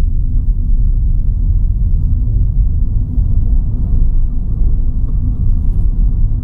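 Steady low rumble of wind and road noise on a side-mounted action camera's microphone, even in level and with little treble.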